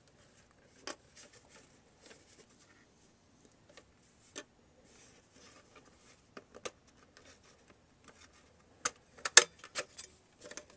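Light, scattered clicks and taps of a DVD drive's plastic casing and clips being handled, with a louder run of sharp clicks near the end.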